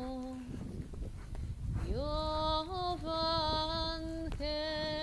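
A woman's voice singing long held notes of a folk song, gliding up to a higher note about two seconds in, then a short break and another long note near the end. Low knocking and rumble underneath, like a horse's hooves.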